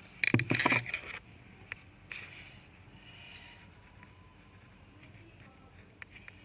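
Drawing strokes scratching across a surface: a loud, rapid run of strokes about a second in, a shorter one around two seconds, then lighter scratching.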